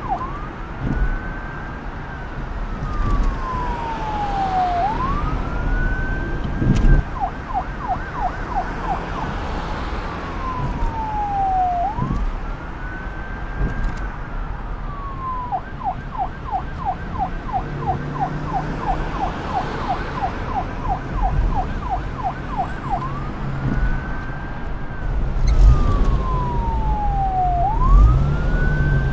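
Police siren cycling between a slow wail, which rises quickly and falls slowly, and a fast yelp of several sweeps a second. Underneath is a low rumble with an occasional thump.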